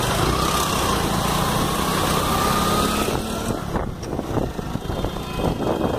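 A small engine running steadily under a thick wash of noise. About four seconds in, the noise thins.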